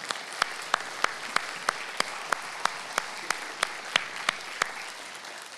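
Congregation applauding, with one close pair of hands clapping sharply about three times a second. The close clapping stops near the end as the applause fades.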